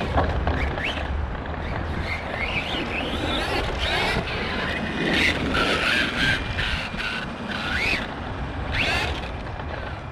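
Arrma Kraton 4S radio-controlled truck running laps: its brushless motor whine rises and falls again and again as it speeds up and slows, over a steady noisy rumble. The owner suspects an unhappy bearing or gear in the drivetrain.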